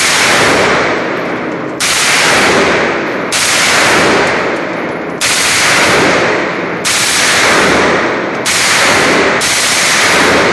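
MP5 submachine gun fired seven times, a second or two apart, each shot sharp and ringing on loudly through the enclosed shooting range.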